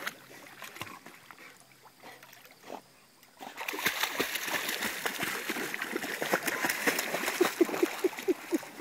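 A vizsla splashing and paddling in lake water at the edge of a dock. The first three seconds or so are light, then heavy splashing starts about three and a half seconds in and keeps going.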